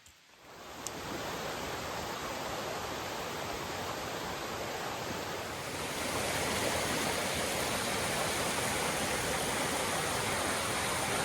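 Rose River water rushing over rocks and cascades, a steady noise that comes up in the first second and grows louder about six seconds in.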